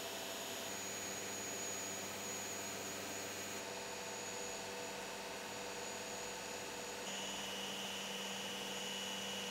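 Steady machine hum and hiss of running shop equipment, with several steady whining tones. The tones shift a little about three-quarters of a second in, again past three and a half seconds, and again past seven seconds.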